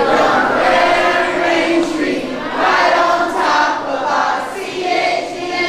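Many children's voices chanting a school cheer together in unison.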